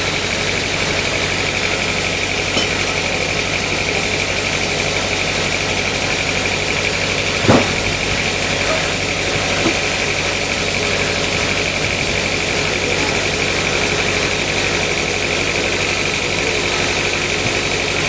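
Sawmill machinery running steadily with a constant high whine and a low hum, with one short knock about seven and a half seconds in.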